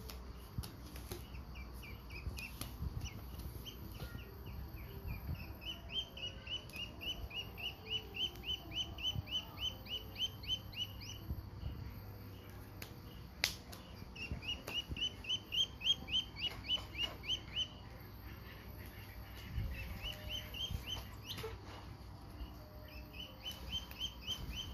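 Duckling peeping: runs of short, high, downward-slurred peeps, about three or four a second, broken by brief pauses.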